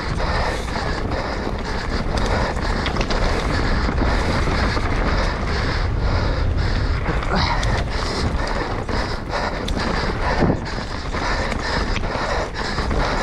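Wind rushing over the camera microphone as an Intense Tracer full-suspension mountain bike descends a dirt and rock trail at race speed, with tyres rolling over the ground and the bike clattering and knocking over bumps and stones.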